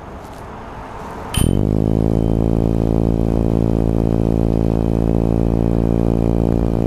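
Flip FPV quadcopter's electric motors and propellers starting up about a second and a half in, then spinning at a steady idle hum while the craft stays on the ground after arming, ready for its first takeoff.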